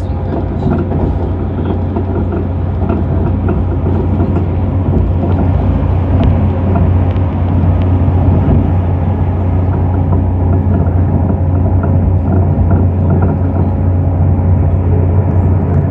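Interior running noise of a passenger train at speed: a steady low rumble from the wheels and running gear with a faint steady hum over it, growing a little louder about a third of the way in.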